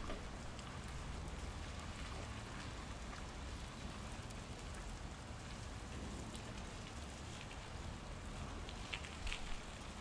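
Rainwater dripping and pattering on surfaces after a shower, a steady wet patter with a low rumble underneath. A few sharper drips stand out about nine seconds in.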